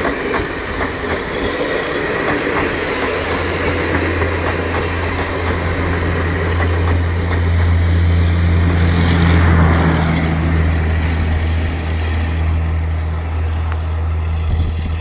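Coaches of an AC express passenger train rolling past on the rails, a continuous rumble of wheels with a steady low hum. It grows loudest about nine seconds in and then eases off.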